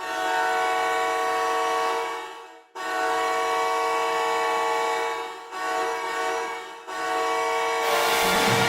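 Hockey goal horn blaring a chord in four blasts: two long ones of about two and a half seconds each, a shorter third, and a fourth that carries on. Goal song music comes in under it near the end.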